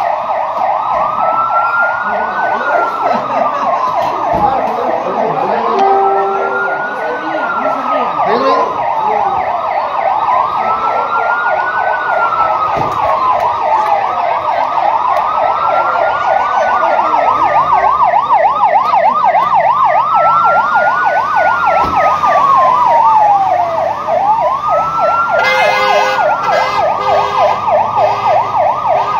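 Emergency vehicle sirens sounding together: a slow wail rising and falling about every five seconds over a fast, continuous warble.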